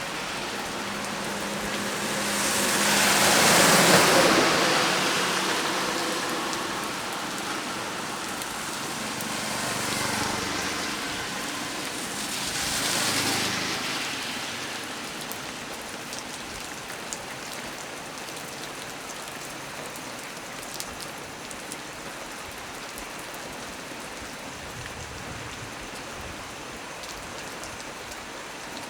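Heavy rain falling steadily, an even hiss with scattered drop ticks. Broad rushing surges swell and fade about four, ten and thirteen seconds in.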